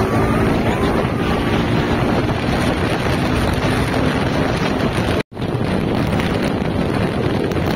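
Heavy wind buffeting the microphone on a moving vehicle, with road and engine rumble underneath. The sound cuts out for an instant a little past five seconds in.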